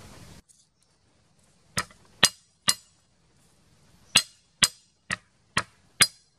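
A cleaver blade strikes down on garlic cloves on a chopping board, smashing them. There are eight sharp knocks, each with a short metallic ring: three about half a second apart, then a pause, then five more at the same pace.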